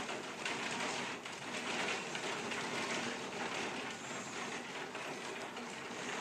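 Steady rain falling in a thunderstorm, an even dense hiss of drops.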